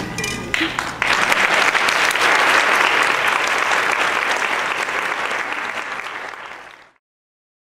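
Audience applauding. The clapping starts about a second in and dies away gradually near the end.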